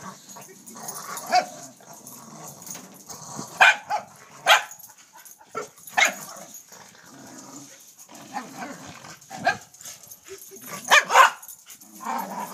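Corgis barking during rough play with a tetherball: short, sharp single barks a second or more apart, with two in quick succession near the end.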